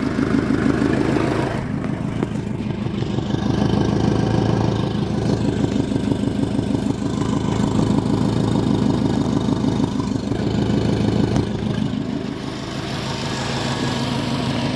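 Subaru WRX's turbocharged flat-four engine, fitted with an FP Blue turbo, running steadily at idle. It is being checked for an exhaust leak, which the tuner is sure it has and suspects makes the turbo spool late.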